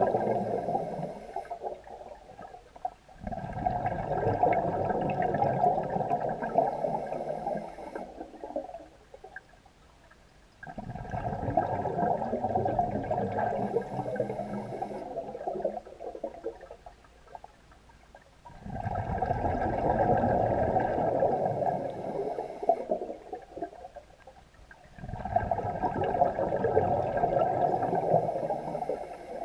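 A scuba diver breathing through a regulator, heard underwater: four long rushes of exhaled bubbles, one every 7 to 8 seconds, with quieter pauses between them for each breath in.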